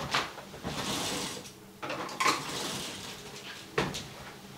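Metal kitchen utensils rattling and clinking while a utensil drawer is rummaged through to fetch a spatula, with a sharp knock near the end.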